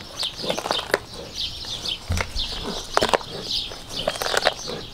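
A male lion chewing and crunching through the head and bones of a raw fish, with irregular sharp cracks, the loudest about three seconds in. Steady high chirping runs in the background.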